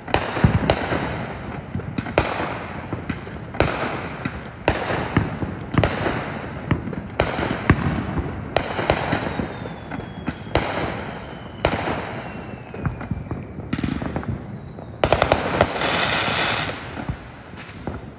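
Consumer aerial fireworks bursting overhead in quick succession, a sharp boom about every second, each trailing off. A few faint falling whistles come in the middle, and near the end there is a loud continuous rush of sound lasting about two seconds.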